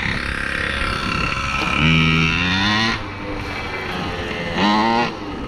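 Primal R/C Raminator monster truck's motor running and revving up twice, each rev a rising whine, the first about two seconds in and the second near the end.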